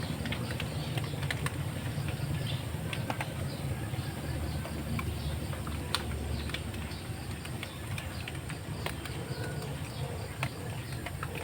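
Outdoor morning ambience: small birds chirping in short calls throughout, over a steady low rumble, with a constant high-pitched hum and scattered sharp clicks.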